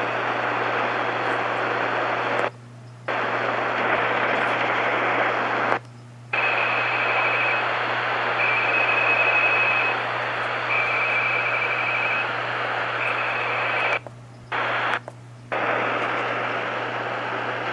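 Shortwave radio receiver in lower sideband on 4.270 MHz, giving a steady buzzing hiss over a low hum from an unidentified signal similar to the UVB-76 buzzer. The signal drops out briefly four times, and a faint high tone comes and goes in four short dashes midway.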